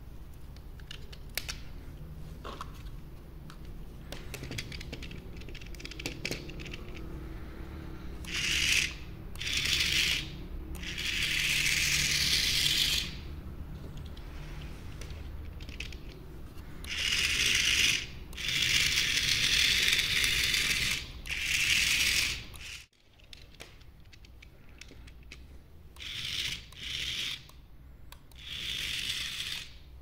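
Clicks and rattles of AA batteries being pushed into a plastic battery holder. Then the small plastic DC gearbox motors of a toy robot car whir in repeated bursts of about half a second to three seconds as they are switched on and off.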